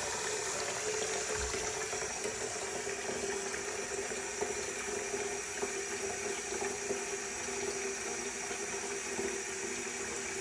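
Steady flow of hot water running, with a faint steady hum underneath.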